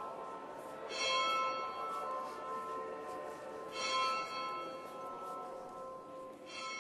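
A bell tolling three times, about three seconds apart, each stroke ringing on between strikes.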